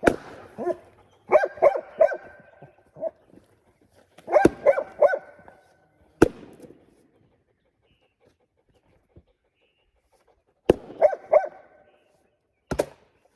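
Golden retriever barking in quick runs of three or four barks, four runs in all. Two sharp cracks also sound, about six seconds in and near the end.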